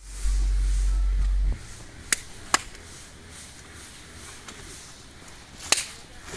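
A deep rumble on the microphone for about a second and a half, then sharp knocks, twice close together and once louder near the end, as baked root vegetables are handled and set down on the leaves of an opened earth oven.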